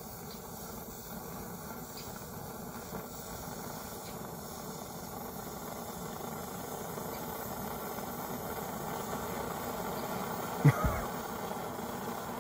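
Old Primus-type stove burning unleaded petrol, its burner hissing steadily and growing slowly louder as it heats up and starts working. A short thump comes about ten and a half seconds in.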